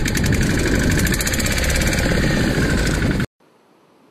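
Small fishing boat's engine running with a steady, rapid knocking beat. It cuts off abruptly about three seconds in, leaving a faint hiss.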